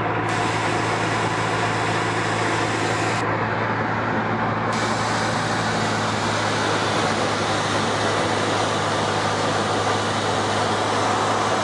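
Steady drone of a Cessna's engine and propeller in cruise, heard from inside the cabin: an even low hum under a wide rush of air noise.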